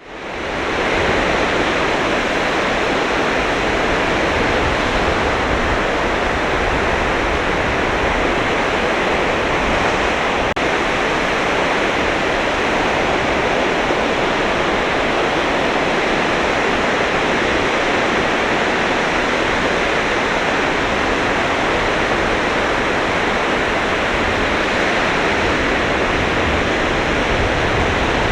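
Sea surf breaking and washing on the beach, a steady unbroken rush of waves that fades in at the very start.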